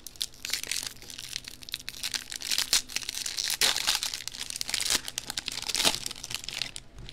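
Foil wrapper of a jumbo baseball card pack crinkling and tearing as it is pulled open by hand: a dense, irregular crackle that eases off near the end.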